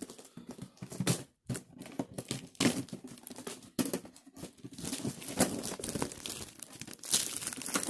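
Clear plastic shrink wrap crinkling and tearing in irregular crackles as it is peeled off a metal tin lunch box.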